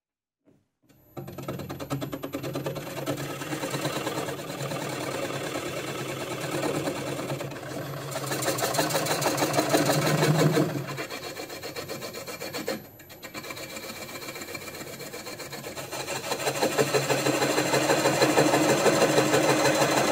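Record Power wood lathe spinning a walnut bowl blank while a small hand-held blade scrapes the turning wood beside the tailstock: a steady rasping cut over the motor's hum. The sound cuts in about a second in and dips briefly about two-thirds of the way through.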